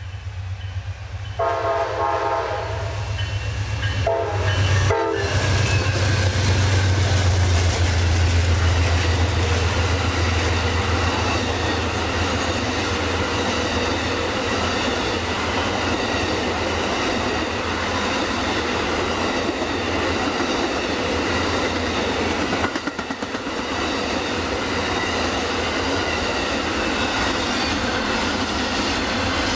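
Amtrak Auto Train passing close by. The lead GE P42DC diesel locomotive sounds its multi-chime horn twice, a longer blast about a second and a half in and a shorter one around four seconds in. Its diesel engine drone then swells as it passes, and the Superliner and autorack cars follow with a steady rumble and clatter of wheels over the rail joints.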